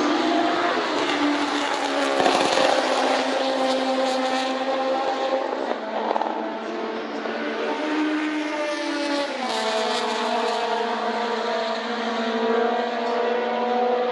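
Vintage Formula 2 race cars with small four-cylinder engines running at high revs as they pass, several engine notes overlapping. The pitch drops sharply about nine and a half seconds in.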